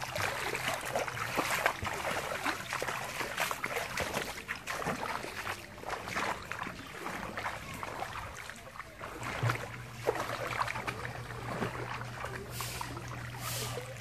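Feet wading through shallow floodwater, splashing and sloshing with each step in an uneven rhythm.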